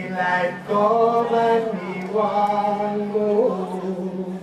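Slow music for the act: long held notes, two of about a second each, over a steady low drone.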